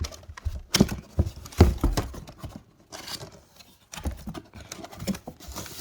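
Irregular knocks and thumps of intake kit parts being handled and set down in their box, the loudest cluster between about one and two seconds in, with a few softer knocks later.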